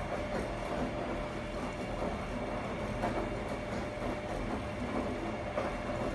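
Primus RS16 front-loading washing machine running a wash: the drum turning and wet laundry tumbling and sloshing, a steady rumble with small irregular surges and a faint steady hum.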